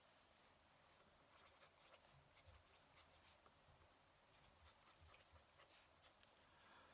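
Fountain pen nib scratching across paper in short, faint strokes, starting about a second in.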